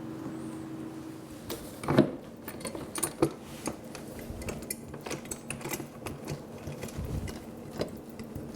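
Irregular clicks and knocks of small hard objects being handled and set down, the sharpest about two seconds in, over a steady low hum.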